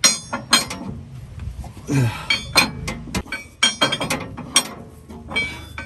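Ratchet wrench clicking and metal tools clinking in short, irregular bursts as a large 44 mm steering nut is worked loose.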